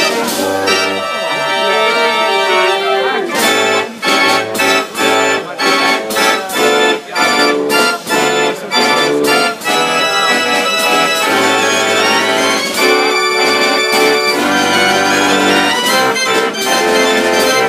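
Large pipe-playing fair organ (Konzertorgel) playing a tune: full organ chords and melody, with a run of short, clipped chords separated by brief gaps through the middle before it returns to a smoother, sustained passage.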